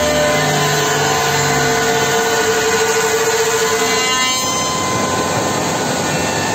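Woodmaster four-spindle CNC wood machining centre routing wooden workpieces: the spindles run with a steady whine over dense cutting noise. The spindle pitch shifts about four seconds in.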